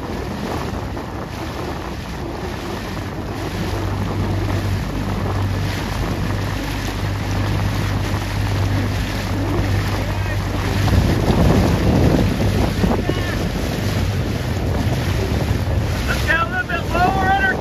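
Dragon boat crew paddling: paddle blades splashing and water rushing past the hull, with wind buffeting the microphone and a steady low hum. A voice calls out in short pitched calls near the end.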